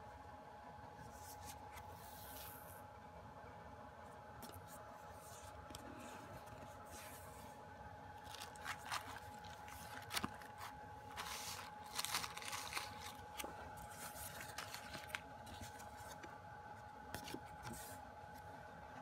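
Paper and card rustling and scraping as a K-pop album's photobook pages are flipped and cards and the postcard are handled, over a faint steady hum. The handling noises grow busier and louder from about eight seconds in.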